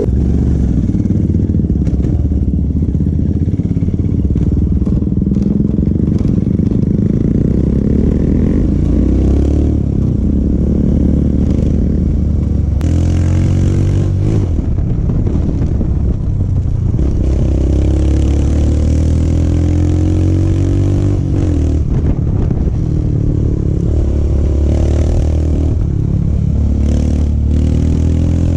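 Royal Enfield Himalayan single-cylinder engine running through an aftermarket Akrapovic exhaust while being ridden, its pitch rising and falling with throttle and gear changes.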